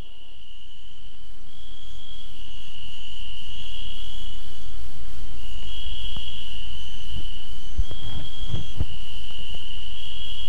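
Crickets chirping steadily in a high, continuous trill, fading in over the first few seconds. A low rumble sits underneath, with a few low thumps near the end.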